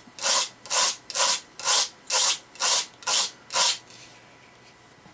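Knife blade scraped back and forth on a sharpener under heavy pressure, eight even strokes about two a second, stopping about four seconds in. This is a rough grind to take chips and a dent out of the edge.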